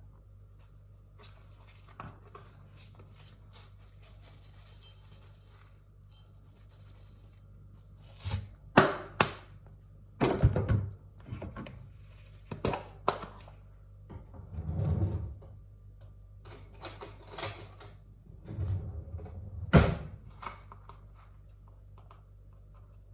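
Kitchen handling sounds while seasoning is added to sliced sweet potatoes: a run of irregular clicks, taps and sharper knocks of containers and utensils, with a few seconds of light hissing rustle about four seconds in.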